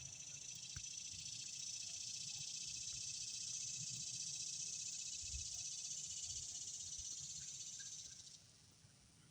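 An insect's high, steady buzzing song, swelling in over the first second and cutting off suddenly about eight seconds in.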